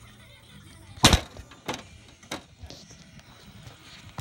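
A loud thump about a second in, then two fainter knocks.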